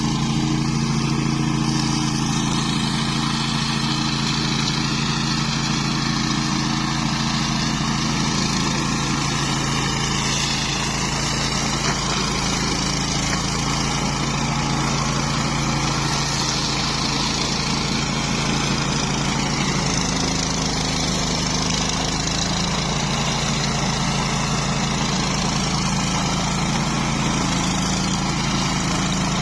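Flail mower's engine running at a steady speed, with an even, unchanging drone.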